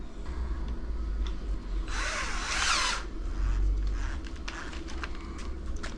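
Electric drill running and boring into wood, with a louder burst of cutting about two seconds in that lasts about a second.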